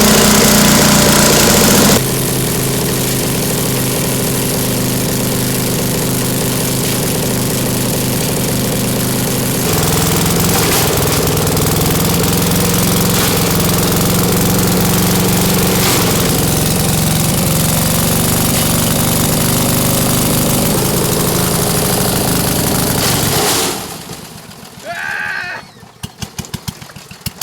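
Craftsman chipper-shredder's small gasoline engine running steadily at high speed while it shreds herring, its pitch stepping a few times. It cuts off about 23 seconds in, leaving a rapid, irregular ticking near the end.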